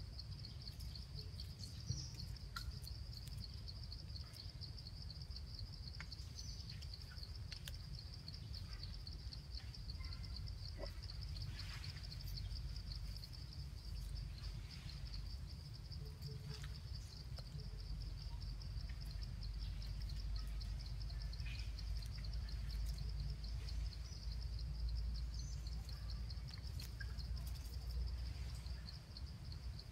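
Steady, high-pitched insect trill with a rapid pulse, over a low rumble that grows louder in the second half, with a few faint clicks and short chirps.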